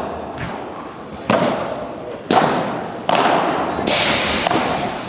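Padel rally: the ball struck with solid padel rackets and bouncing off court and walls, five sharp hits about one a second, each trailing off in the echo of a large hall.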